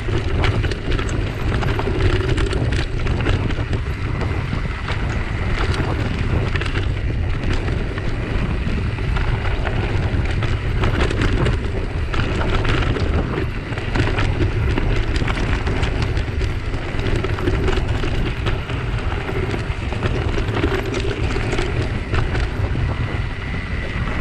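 Mountain bike riding over a rocky, loose-stone trail: constant wind rumble on the microphone, with the tyres crunching over gravel and frequent rattles and knocks as the bike bounces over rocks.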